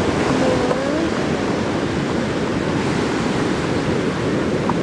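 Ocean surf breaking, heard as a steady rushing noise, mixed with wind on the microphone.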